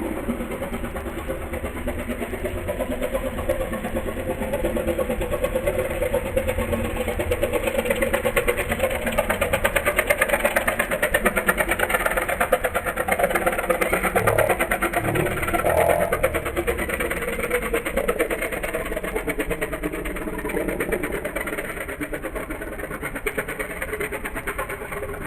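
Small single-cylinder katinting longtail boat engine running fast, with a rapid, even firing rhythm. It grows louder toward the middle and eases off near the end.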